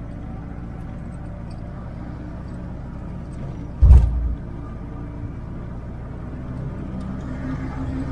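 Motor vehicle engine running steadily with a low hum, growing a little louder near the end, and one short heavy low thump about four seconds in.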